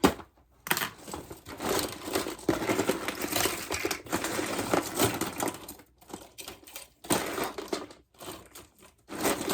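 Plastic fidget toys rattling and clattering as a drawer full of them is rummaged through by hand, in bursts broken by short pauses in the second half.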